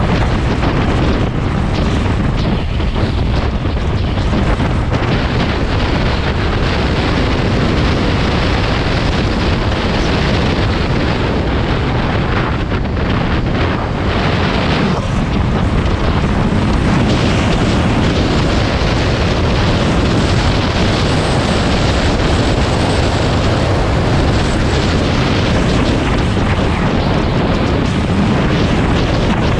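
Honda dirt bike's engine running under way on a gravel road, heard under a steady rush of wind on the camera microphone.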